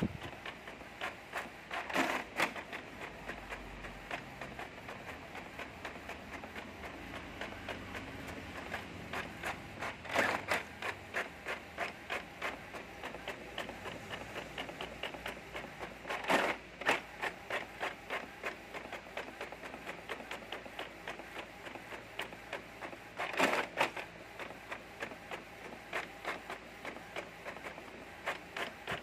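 Multifunction printer printing a run of pages: a steady rhythmic clicking and whirring of the mechanism, with a louder burst of clatter every six or seven seconds.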